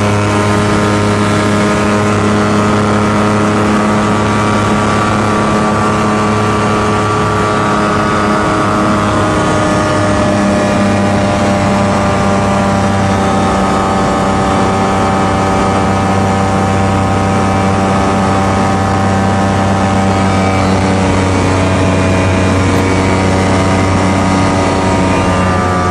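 Light airplane's piston engine and propeller running at high power, heard from inside the cockpit, during takeoff and climb-out. A steady drone whose pitch shifts slightly about nine seconds in.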